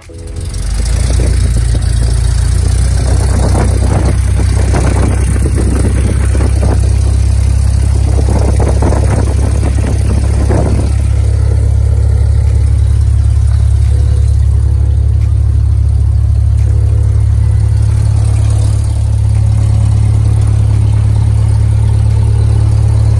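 Piston engine and propeller of a single-engine light aircraft running steadily, heard from inside the cabin.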